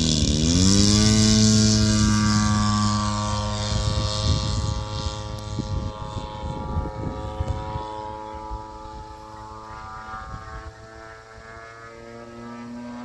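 Flex Innovations Mamba 70 RC model plane in flight: a motor whine with many overtones that dips in pitch and climbs back in the first second, then holds steady and slowly fades as the plane flies away.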